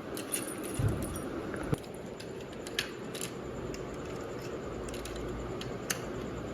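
Steady machinery noise with scattered sharp metallic clicks and clinks, a low thump about a second in; it cuts off abruptly at the end.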